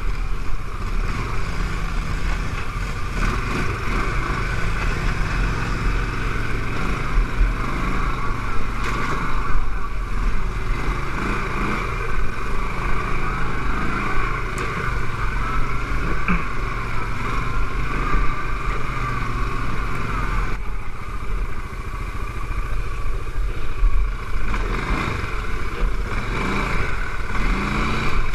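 CFMoto X5 quad's engine running continuously as it rides over grass, rising and falling a little with the throttle.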